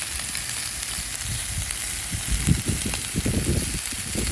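Fish fillets frying in hot oil in a pan with a steady sizzling hiss, with irregular low rumbles from about halfway through.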